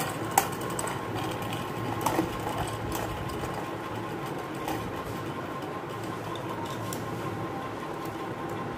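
Two Beyblade tops, Bloody Longinus and Cog Knight, spinning and whirring steadily while they grind against each other. A few sharp clicks come as they knock together.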